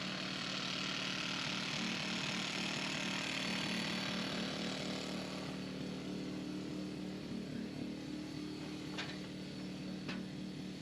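A small engine or motor running steadily with a constant hum. A hiss over it fades out about five seconds in, and a few faint sharp clicks come near the end.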